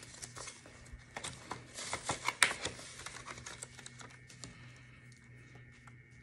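Paper banknotes and the plastic pockets and pages of a ring binder rustling and clicking as they are handled, with a cluster of sharper clicks about two seconds in, then quieter scattered rustles.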